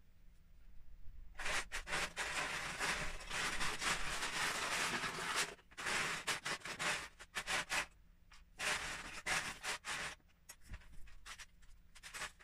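Loose plastic Lego bricks clattering and scraping as hands rummage through a clear plastic storage tub full of them, in three long stretches of rattling followed by scattered clicks near the end.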